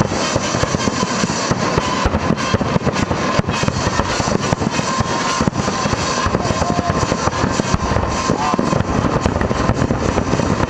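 Fireworks finale barrage: a dense, unbroken run of aerial shell bursts and crackle, with no gaps between the reports.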